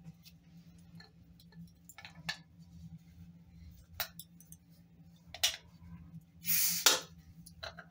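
Glass beer bottle handled with a few light clicks and taps, then a short loud hiss as the crown cap comes off, a little over six seconds in.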